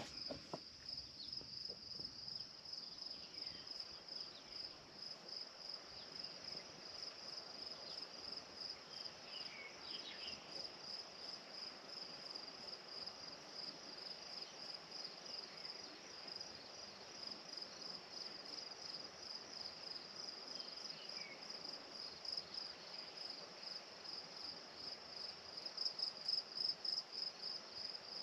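Insects in grassland trilling: a steady, high-pitched, rapidly pulsing chirr that grows a little louder near the end, with a couple of faint short chirps about ten and twenty seconds in.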